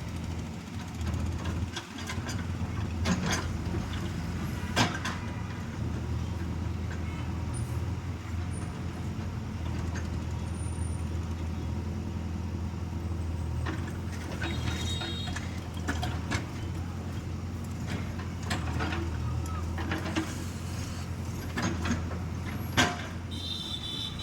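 JCB 3DX backhoe loader's diesel engine running steadily under digging and loading work, with scattered sharp knocks.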